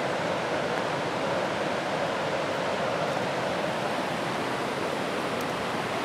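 Steady rush of a fast-flowing rocky creek and its falls, an even unbroken roar.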